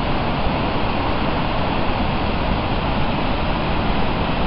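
Steady rushing noise of the Genesee River's Upper Falls pouring through the gorge.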